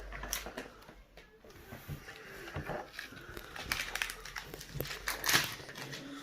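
Plastic toy packaging crinkling and rustling as it is handled, with scattered small clicks and a louder rustle about five seconds in.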